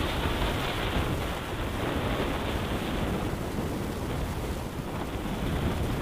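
Rush of wind over the microphone of a moving motorcycle, with the bike's running sound underneath. The rush eases a little after about three seconds as the motorcycle slows.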